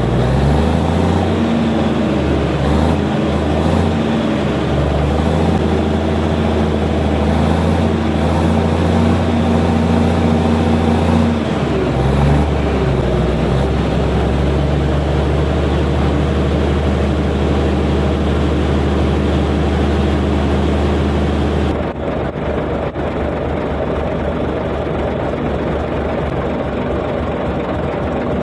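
Komatsu bulldozer's diesel engine running steadily, its pitch shifting about twelve seconds in, then dropping to a quieter idle near the end.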